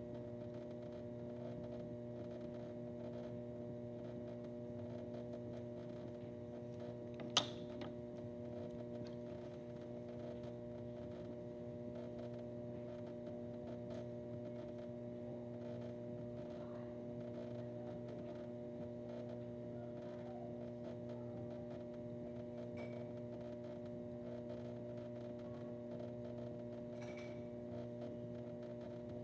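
A steady electrical hum with several pitches held level, and one sharp click about seven seconds in.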